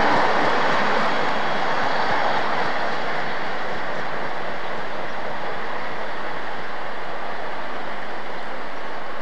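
InterCity 125 (HST) coaches of a failed set rolling past as they are hauled by a diesel locomotive, giving a steady rail rumble. The sound is loudest at the start and eases over the first few seconds as the locomotive draws away, then holds steady.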